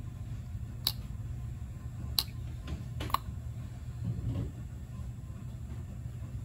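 Steady low hum of workshop background, with three sharp small clicks in the first half as gasket sealer is applied by hand to the engine's crankcase.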